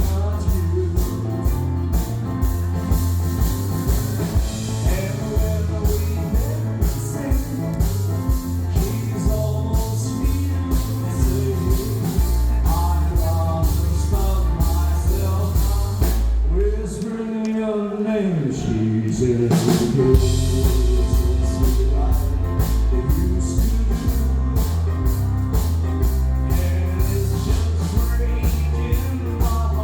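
Live band music with singing over a steady drum-kit and bass beat, recorded on a phone. About 17 seconds in, the bass and drums drop out for a couple of seconds, then come back in.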